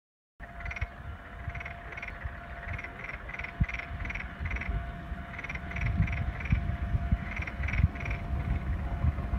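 Frogs calling in a rice paddy: short repeated croaks, two or three a second in runs with brief gaps. Underneath is a low rumble with occasional thumps and a faint steady hum.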